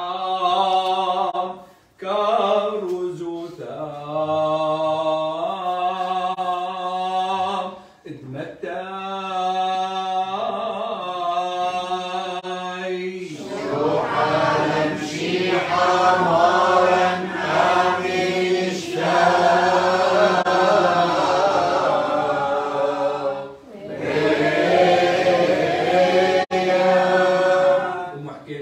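Chaldean liturgical chant: a single man's voice intones a melodic line for about the first thirteen seconds, pausing briefly twice, then more voices join and the singing grows fuller and denser.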